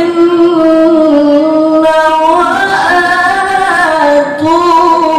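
A man reciting the Qur'an in melodic tilawah style into a handheld microphone. He draws out long, ornamented notes that glide up and down in pitch, with a brief break about four seconds in.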